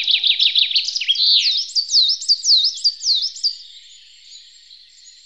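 A songbird singing a fast run of high chirps that sweep downward in pitch, breaking off about three and a half seconds in and leaving a faint hiss.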